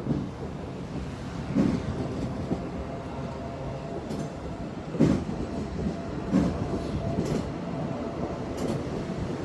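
Train running past on the rails, a steady rumble with heavy knocks every second or so as its wheels cross rail joints.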